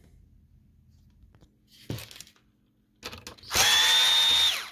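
A single knock, then a cordless drill/driver spins for about a second with a steady whine that drops in pitch as it stops, backing a screw out of a printer's main board.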